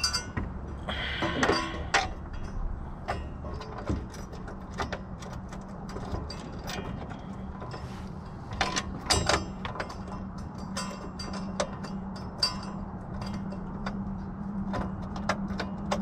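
Scattered metallic clicks, clinks and knocks of hand tools and bolts as trailer-hitch bolts are fitted and turned under a car, with a short scraping rustle about a second in.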